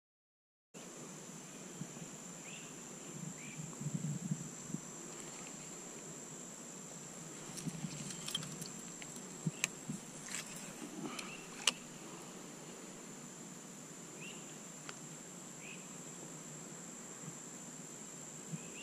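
Steady high-pitched insect drone that sets in just after the start and holds unchanged, with a few sharp faint clicks and light knocks near the middle.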